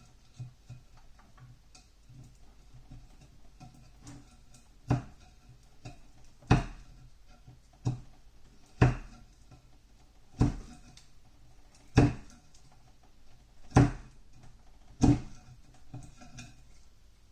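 A series of about eight sharp knocks, roughly one every second and a half, each ringing briefly, over a faint steady background hum.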